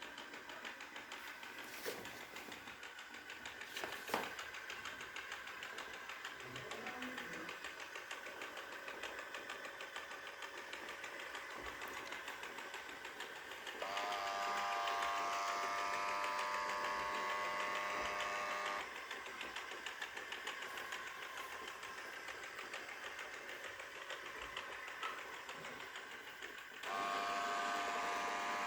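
Xiaomi Mi Robot Vacuum-Mop P running with a fast, steady buzzing rattle, a noise called horrible and taken as a sign that the machine is faulty. About halfway through, a louder whine of several tones sets in for about five seconds, then cuts out, and it comes back near the end.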